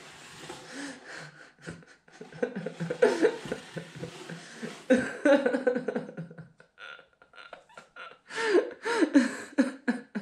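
A woman's voice in short bursts of laughter and wordless vocal noises, with scattered short clicks between them.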